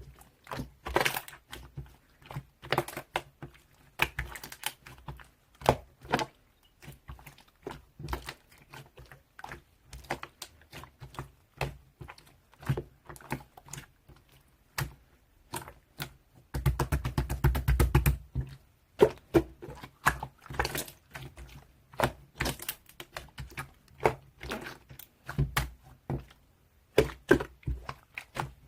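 Hands squeezing and poking slime, making irregular sharp clicks and pops, with a denser, fuller run of popping for about two seconds just past halfway.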